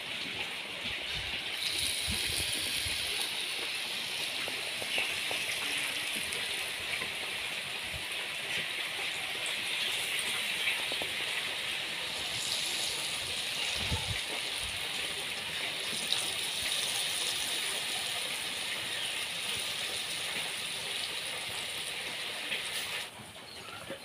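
Batter-coated eggplant slices sizzling steadily in hot oil in a metal kadai. The sizzle comes in suddenly about a second and a half in, as slices go into the oil, and drops sharply near the end.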